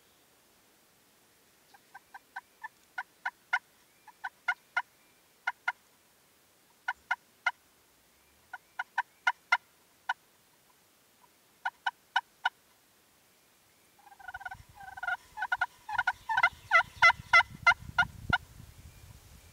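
Wild turkey yelping: short, sharp calls in groups of two to seven, then a louder, faster run of calls near the end with a low rumble beneath.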